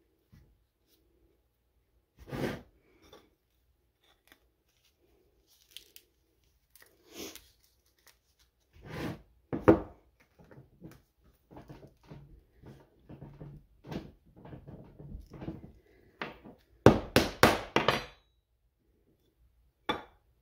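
A hard bath bomb mold being handled and knocked on a wooden tabletop: scattered knocks and rustles, with a quick run of four loud, sharp knocks about seventeen seconds in.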